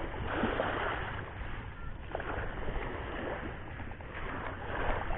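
Drag of a small Ryobi 800 HPX spinning reel screaming as a large hooked fish, a giant trevally, pulls line off against it, with surf washing in the background.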